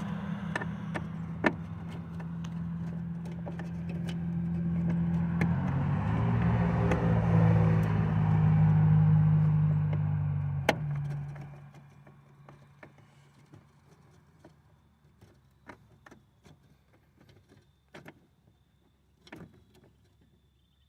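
A motor runs steadily for about eleven seconds, growing louder toward the middle and then cutting off suddenly. Scattered light clicks and taps follow.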